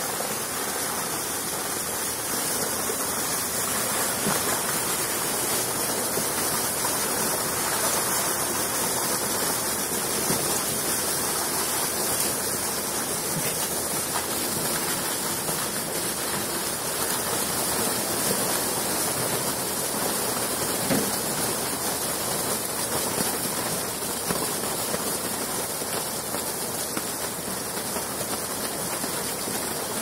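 Water gushing out of a fish-stocking tank's outlet, pouring down a black plastic tarp chute and splashing into a lake in a steady rush as the fish are released.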